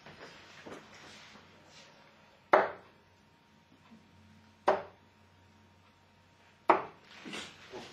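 Three darts striking a Winmau Blade 4 sisal bristle dartboard, one sharp thud roughly every two seconds.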